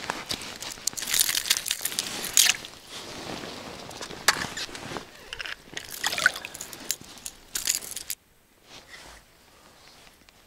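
Wet crunching, slushy sloshing and scraping as a freshly landed perch is handled on the snowy ice by the hole, in irregular clicks and rustles that die down about eight seconds in.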